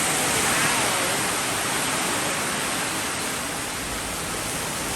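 Rain falling steadily in the rainforest, an even hiss with no break.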